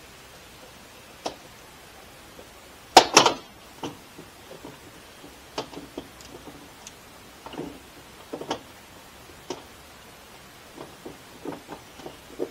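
Scattered knocks and clicks of hands working on a bus entry door and its window frame, loudest as a quick clatter about three seconds in.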